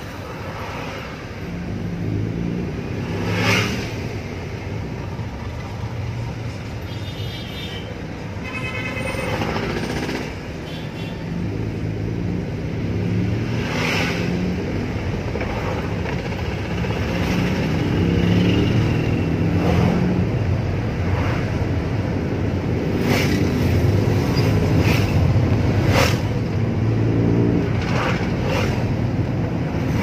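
Toyota Wigo hatchback on the move, heard from inside the cabin: engine and road noise, with the engine note holding steady and shifting in steps, and a few sharp knocks or thumps.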